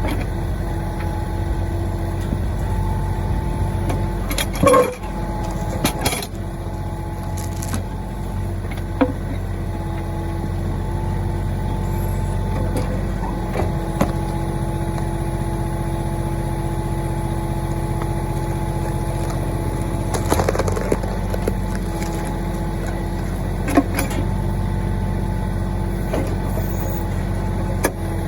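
Mahindra 1626 compact tractor's diesel engine running steadily under backhoe work, with sharp clunks and knocks from the backhoe several times, the loudest about five seconds in.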